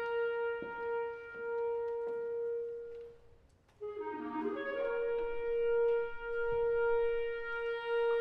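Solo clarinet holding a long high note that breaks off a little past three seconds in. After a brief silence it plays a quick run of notes and settles on another long held note.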